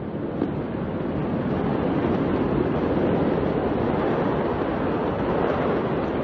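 Steady rushing roar of a large warehouse fire heard from a distance, before the explosion, growing louder about a second in.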